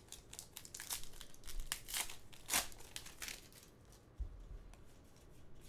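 A trading card pack's plastic wrapper being torn open and crinkled by hand, a run of sharp crackles for the first three seconds or so, then fainter handling of the cards.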